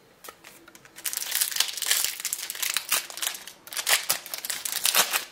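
Crinkling of a trading-card booster pack wrapper as it is opened: a dense run of sharp crackles that starts about a second in.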